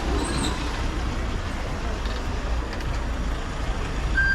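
Outdoor town street ambience: a steady low rumble and hiss, like a vehicle running or passing, with a brief high squeak about a quarter second in and a beeping tone beginning right at the end.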